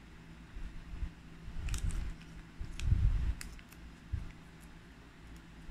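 Light handling noises: a few soft clicks and low bumps, the loudest about three seconds in.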